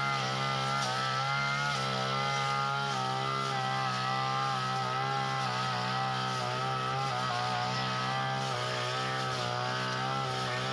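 Small petrol engine of a Tanica brush cutter (grass trimmer) running steadily at high speed, its pitch wavering slightly.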